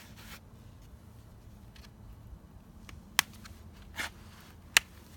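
Handling noises from a plastic-cased e-bike battery being turned over and examined: three sharp clicks and taps in the second half, about a second apart, over a low background.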